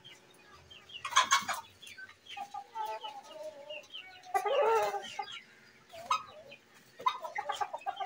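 Chickens clucking in several separate calls, the loudest and longest about halfway through, with a brief noisy rustle about a second in.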